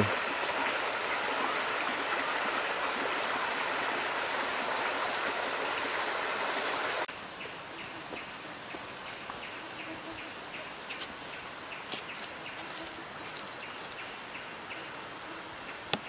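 Shallow forest stream rippling over rocks. About seven seconds in it gives way suddenly to a quieter stretch of water with insects trilling steadily at a high pitch.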